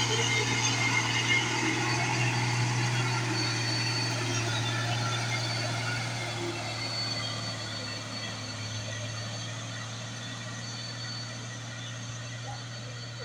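Mitsubishi Fuso truck's diesel engine pulling a loaded truck up a steep hill, a steady low drone that slowly fades as the truck moves away.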